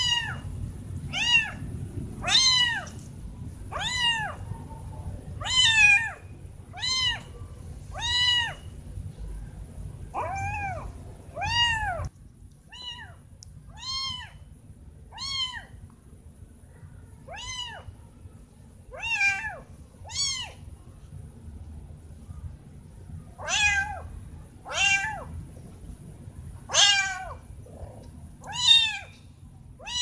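Kitten meowing over and over: more than twenty short, high calls, roughly one a second, each rising and then falling in pitch, with a short pause about two-thirds of the way through.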